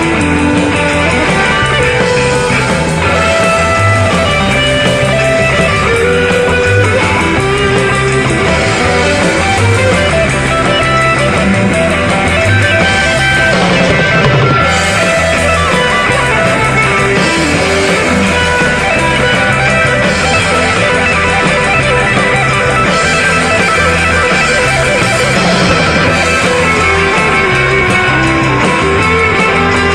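Instrumental background music led by guitar, playing steadily.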